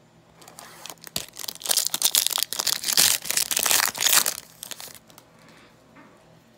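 A trading-card pack wrapper being torn open and crinkled by hand: a dense crackling rustle with many small snaps, lasting about four seconds and then stopping.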